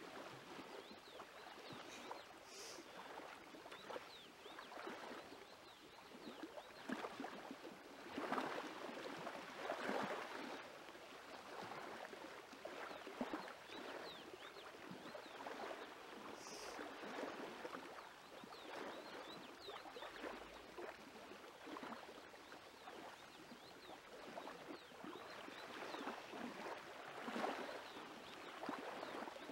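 Hands kneading soft bread dough in an aluminium pot: faint, irregular squishing and pressing of the dough, louder now and then.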